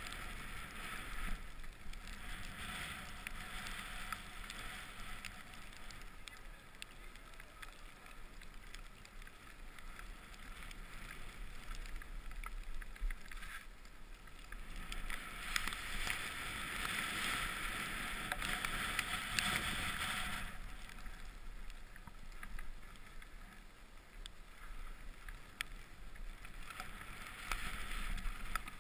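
Steady hiss of a rider sliding through fresh snow, swelling louder for several seconds about halfway through and again briefly near the end.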